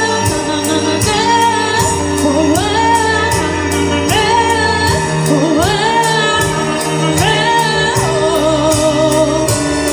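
Music: a woman singing a slow melody with sliding, held notes over an instrumental backing with a steady beat.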